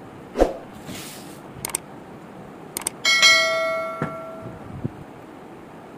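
A metal bell struck once about three seconds in, ringing with several overlapping tones that fade over about a second and a half. A short thump near the start and a few sharp clicks come before it.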